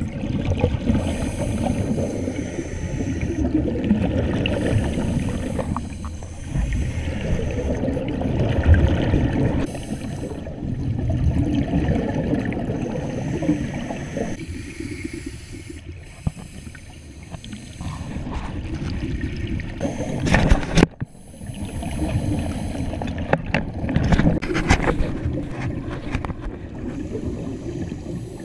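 Scuba regulator breathing heard underwater: exhaled bubbles rumbling in surges every few seconds, with a hiss coming and going between them. A single sharp knock about two-thirds through.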